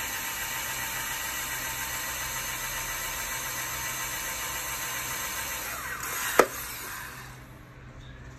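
Cordless drill running steadily under load, drilling out the metal pins of a circuit breaker with a worn bit. A sharp click about six seconds in, after which the drill winds down.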